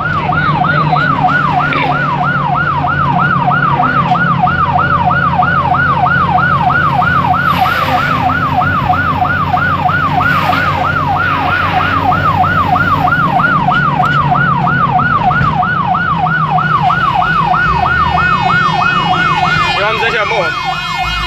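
Fire-service vehicle's electronic siren in a fast yelp, sweeping up and down about three times a second over the vehicle's engine drone, heard from inside the moving vehicle. About a second before the end the siren changes to a different sweep pattern.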